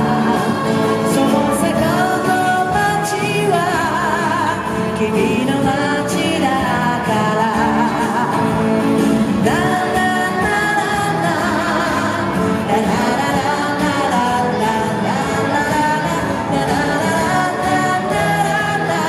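Japanese pop song playing, with sung vocals over a full backing track.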